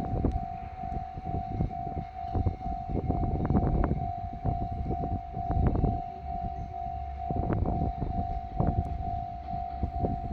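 Japanese level-crossing warning bell ringing in a steady, evenly repeating tone while a diesel train rumbles past, its wheels knocking irregularly over the rail joints.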